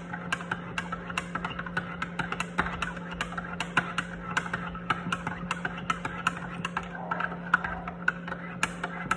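Metal spoon clinking rapidly against the inside of a ceramic mug as coffee is stirred and beaten, about four clinks a second, over a steady low hum.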